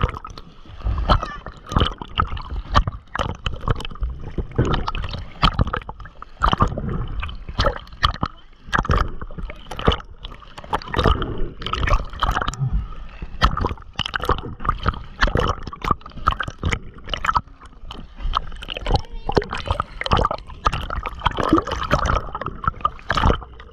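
Sea water splashing and gurgling around an action camera bobbing in and out of the surface, with a run of irregular sharp splashes as swimmers plunge and move in the water.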